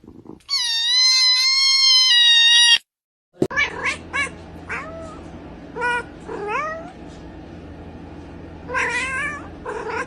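A cat giving one long, loud yowl of about two seconds that cuts off suddenly, followed after a short gap by a run of short meows, with one more call near the end.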